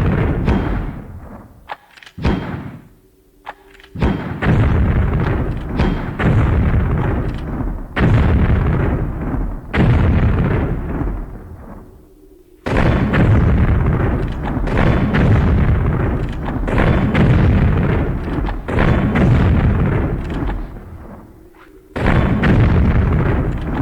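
Gunfire and explosion sound effects: a string of loud, heavy blasts, each trailing off in a long rumble, sometimes running into one another, with brief lulls between groups.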